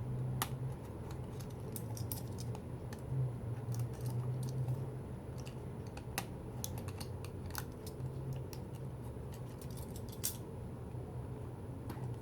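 Light irregular clicks and scratches of a small jewellery box and its earring being handled and opened, over a steady low hum.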